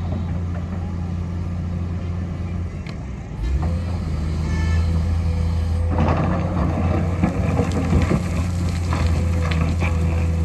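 Heavy road-construction machinery running: a steady, loud diesel engine drone that grows louder a few seconds in. About halfway through, rough scraping and clattering join it.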